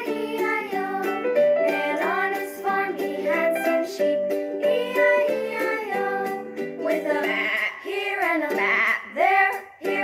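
Children's-style music: a light tune with plucked strings like a ukulele and a singing voice, with some sliding vocal notes near the end.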